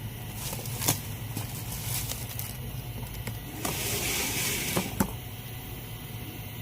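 Parcel packaging being handled: a rustle of plastic wrapping for about a second midway, and a few sharp clicks or taps, over a steady low hum.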